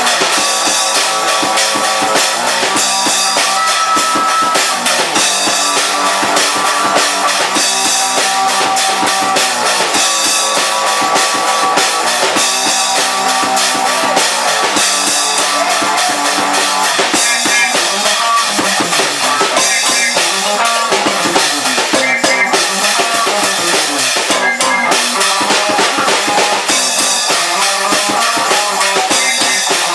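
Music with a drum kit and guitar, playing loudly and without a break.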